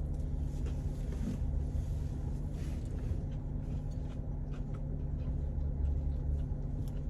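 Steady low hum of a car idling, heard inside the cabin, with scattered small clicks and rustles of eating.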